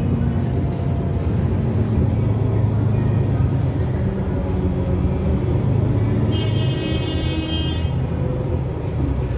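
Cabin noise of an Otokar Kent C-12 diesel city bus under way: a steady low engine and road rumble. About six seconds in, a high, buzzy tone sounds for about a second and a half.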